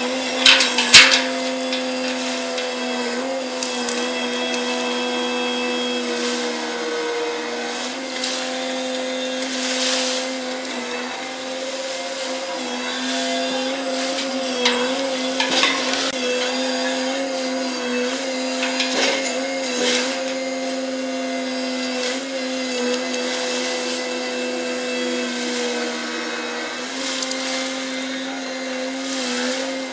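Gut ship's grab-crane machinery running with a steady whining hum, sped up to double speed, that dips and rises in pitch a few times. A few sharp knocks are mixed in, the loudest about a second in.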